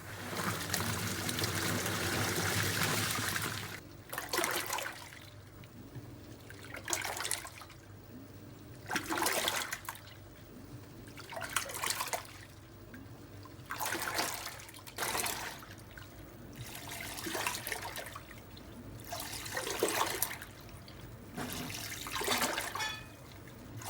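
Toshiba washing machine with water rushing into the tub for about four seconds, then water and laundry sloshing in rhythmic surges every two to three seconds as the wash agitates.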